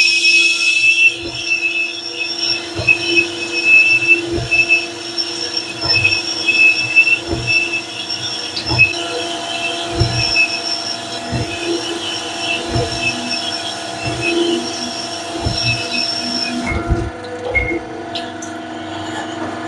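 Honing machine running in a cylinder liner of an S44 engine block, honing the bore to size for new pistons and rings: a steady motor hum with a high squeal from the hone, and a low knock about every second and a half. The squeal stops about 17 seconds in while the motor keeps running.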